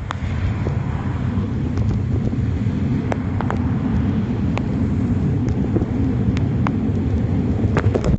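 Wind and road rumble on a phone microphone sealed in a waterproof bag on a bicycle's handlebars while riding in heavy rain, with scattered sharp ticks of raindrops striking the bag.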